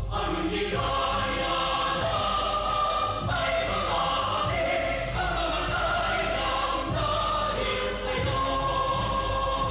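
A choir singing with instrumental accompaniment, holding long sustained notes.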